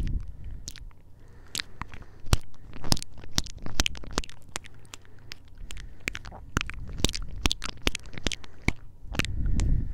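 Close-miked kisses: a rapid, irregular string of lip smacks and pops pressed right against a handheld recorder's microphones, with a low rumble near the start and again near the end.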